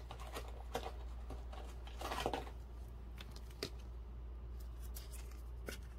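Trading cards being handled and slid by hand: a few faint clicks and a brief rustle about two seconds in, over a steady low hum.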